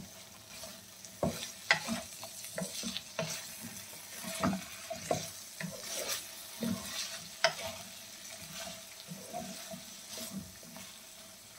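Wooden spatula scraping and tapping against a non-stick wok as chicken pieces and cauliflower florets are stirred, in irregular strokes, over a faint sizzle of frying.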